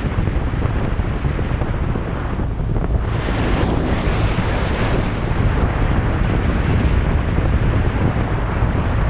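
Loud wind buffeting on the microphone, a steady low rumble and rush of air, as from a camera on a moving motorcycle. About three seconds in, a brighter hiss swells for a couple of seconds, then fades back into the rush.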